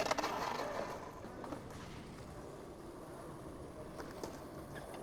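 Skateboard rolling away, its wheel noise fading within about the first second, then a low steady background with a few faint light ticks.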